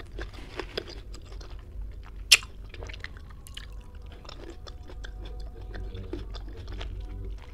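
Close-miked chewing and wet mouth sounds of someone eating ambarella, with many small clicks and one sharp click about two seconds in.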